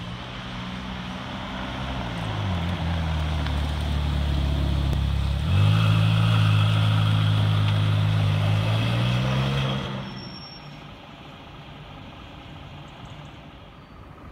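Ferrari 458 Speciale Aperta's flat-plane V8 driving off at low speed: the engine note drops about two seconds in, then the revs rise and it gets louder about five and a half seconds in as the car pulls past. About ten seconds in the engine sound cuts away, leaving faint background noise.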